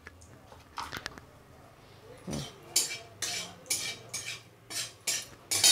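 Metal spatula scraping around an aluminium kadai as whole cumin and cinnamon are tempered in oil: one scrape about a second in, then a steady run of scrapes, about two a second, through the second half.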